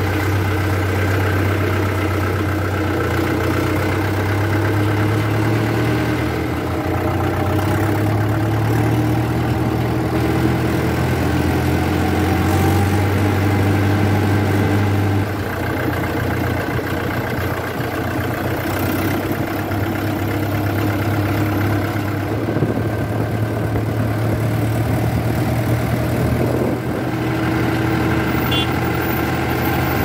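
Farm tractor's diesel engine running steadily while the tractor drives along, heard from the driver's seat. The engine eases back briefly three times, about a fifth, half and nine-tenths of the way through.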